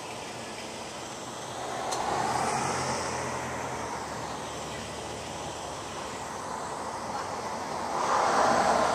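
Street traffic: a vehicle passes about two seconds in, with a faint engine hum, and another swells up near the end, over a steady hiss.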